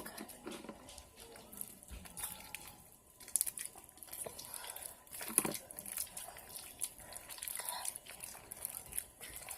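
Homemade glue slime being kneaded and stretched by hand, sticky and not yet fully set: irregular wet squelches and small clicks.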